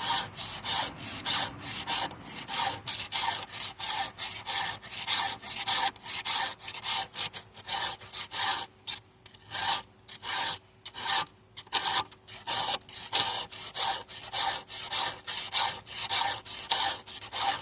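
Hand file rasping on a chainsaw chain in steady back-and-forth strokes, about two to three a second. The file is getting dull and hard to use.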